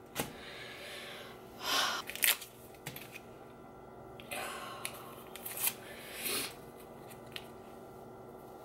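Rustling and tearing of an alcohol prep pad packet being opened, several short bursts over the first six and a half seconds.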